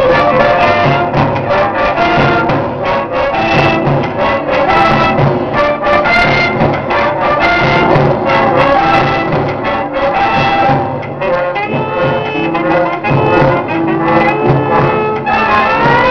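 Children's symphonic band playing, the brass section to the fore, with percussion strikes throughout.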